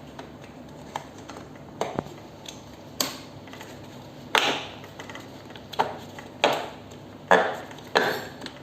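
Hard plastic parts knocking and clicking as a footrest is pushed and worked into its slot on a children's ride-on bike body: about eight irregular knocks, the loudest in the second half.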